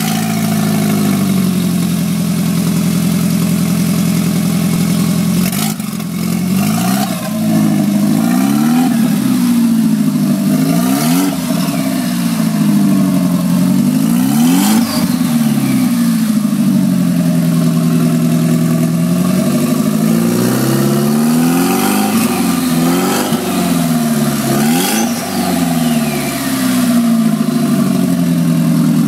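Audi S3 1.8-litre 20-valve turbocharged four-cylinder running with no exhaust fitted: idling steadily at first, then blipped up and down over and over before settling back to idle near the end. A faint falling whistle follows two of the revs.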